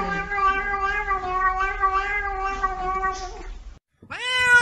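A kitten's long, drawn-out meow held on one wavering pitch for several seconds, then cut off abruptly. Just before the end a second cat starts a loud meow that rises sharply at its start.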